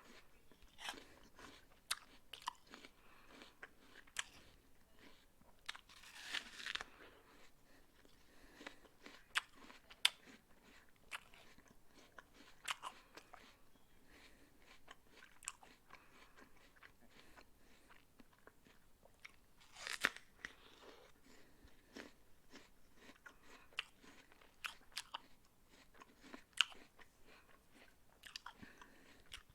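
A person biting into and chewing a raw apple: irregular crisp crunches with pauses between them. The loudest, longest crunches come about six and twenty seconds in.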